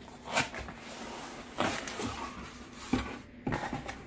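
Cardboard laptop box being opened by hand: the lid lifting and scraping against the box sides, with a few short scrapes and taps of cardboard.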